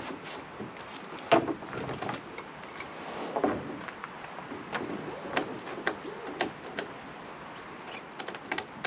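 Tie-down straps being pulled tight and buckled over canoes on car roof racks: scattered clicks and knocks of buckles and webbing against the hulls, with a few short scraping sounds, the clicks coming closer together near the end.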